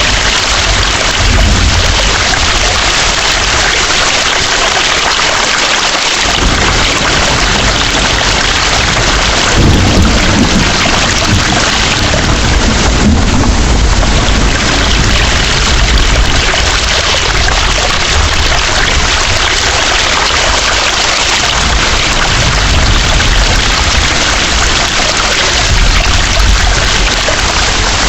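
Heavy rain pouring steadily, with low rolling thunder rumbling underneath that swells about ten seconds in and fades, then rumbles again later.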